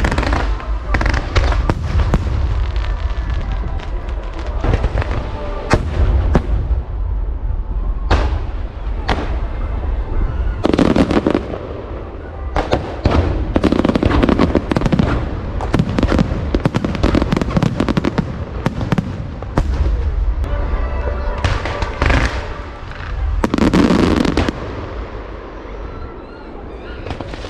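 Aerial fireworks display: shells bursting in quick succession over a continuous low rumble, with louder flurries of bursts at intervals. It eases off near the end.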